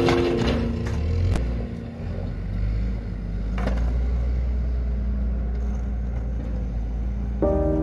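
A low steady rumble with two sharp skateboard clacks on the pavement, about a second and a half and three and a half seconds in.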